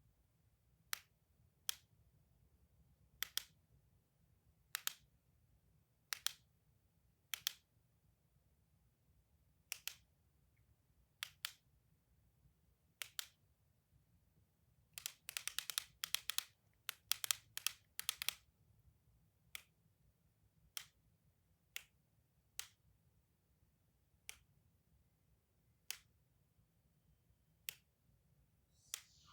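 Sharp toy clicks, single or in quick pairs about every second or so, with a rapid flurry of clicks around the middle.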